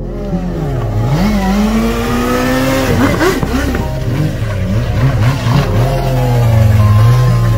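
Vehicle engines revving up and down over and over, from a small hatchback doing donuts and a sportbike, with a rougher stretch in the middle. The revs hold steady near the end.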